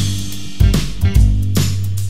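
Background music: a drum beat over a low bass line, with plucked guitar.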